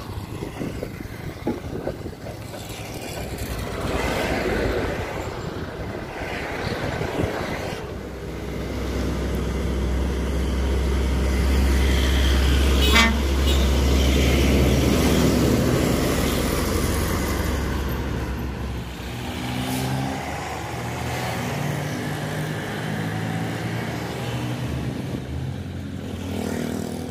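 Heavily loaded Hino SG260TI tractor-trailer pulling away past the camera, its six-cylinder turbodiesel working hard and growing loud as it passes, with a short horn toot about halfway through; the engine sound then fades as the truck drives off.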